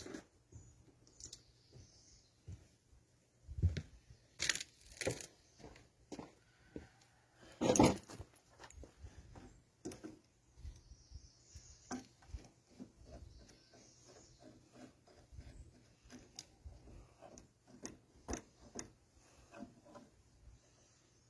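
Scattered clicks, knocks and rustling from parts and tools being handled on a workbench. The loudest are a few sharp knocks about four to five seconds in and one near eight seconds.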